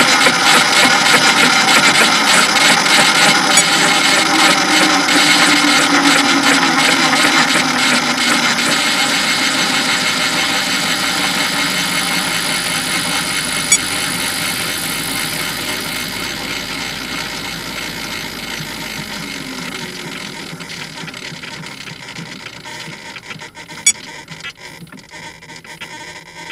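Onboard sound of an 800-size electric RC helicopter, a Roban Bell 222 scale model, sitting on the ground with its motor, gears and rotor winding down. The noise fades steadily and falls slightly in pitch over about twenty seconds, with two sharp clicks, one about halfway and one near the end.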